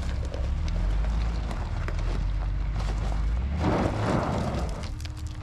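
Suzuki Sidekick's engine running under load as it crawls up a loose, rocky slope, tyres crunching on stones. About three and a half seconds in, a rear wheel spins and sprays gravel for about a second.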